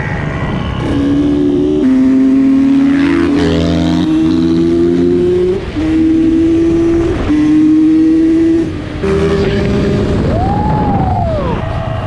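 Two-stroke dirt bike engine under hard acceleration, its pitch climbing and then dropping back several times as it shifts up through the gears. Near the end there is a quick rev up and back down.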